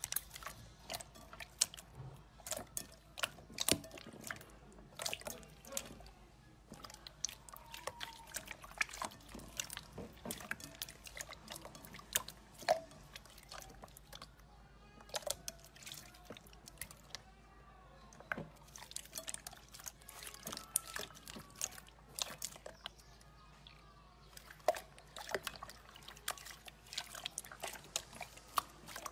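Hands kneading and squeezing a glossy slime: irregular wet, sticky clicks and pops as air pockets burst and the slime pulls away from the fingers and the bowl.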